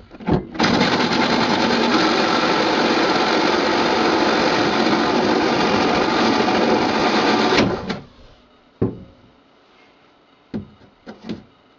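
Handheld power tool running steadily for about seven seconds and then stopping, followed by a few light knocks: cutting a hole in the fiberglass hull for a new bilge drain through-hull.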